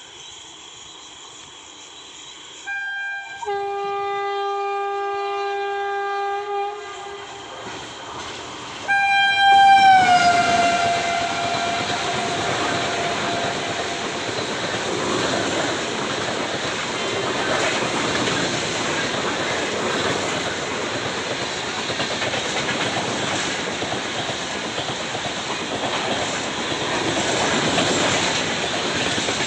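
Indian Railways express train passing at about 120 km/h. A long horn blast sounds about three seconds in. A second blast comes about nine seconds in, and its pitch drops as the locomotive goes by. The loud, steady rush and clatter of the coaches follows.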